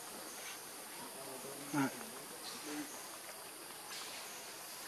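Steady buzzing chorus of insects, with one short loud vocal call about two seconds in and a fainter, shorter one just under a second later.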